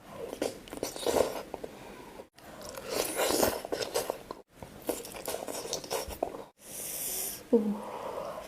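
Close-miked wet chewing and mouth sounds of someone eating seblak with chewy bakso aci meatballs, in irregular bursts broken by several abrupt drop-outs, with a brief murmur near the end.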